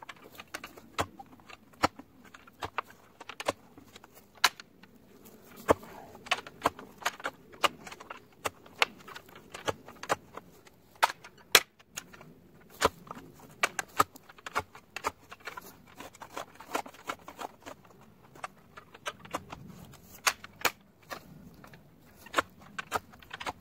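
Steel clamshell post hole digger being worked in a hole: a steady run of sharp, irregular metallic clicks and clanks, about two or three a second, as the blades are driven into the soil and worked.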